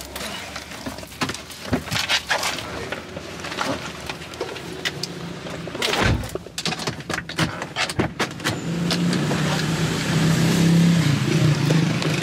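A motor vehicle's engine running, growing louder and steadier about nine seconds in, with scattered knocks and clatter before that.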